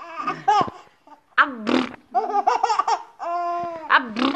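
A baby of about seven months laughing in repeated bursts, with sharp gasping breaths between them.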